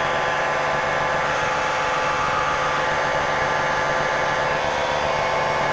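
Small experimental airplane's engine and propeller running steadily in flight at cruise power, an even drone of many steady tones with no change in pitch.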